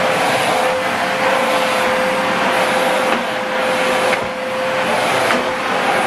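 Hoover Whirlwind bagless cylinder vacuum cleaner running steadily, its motor giving a constant whine over the rush of air, as the floor head is worked over carpet. The hiss swells and fades every second or so, with a few light clicks.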